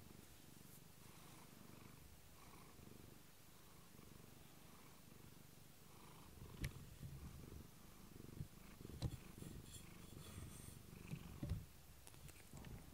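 Domestic cat purring close to the microphone, a soft, steady low rumble. A few short knocks come in from about the middle on.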